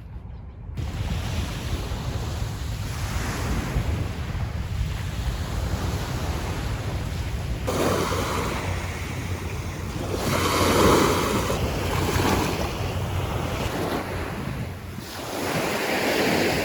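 Sea waves breaking and washing ashore, swelling louder three times, with wind rumbling on the microphone.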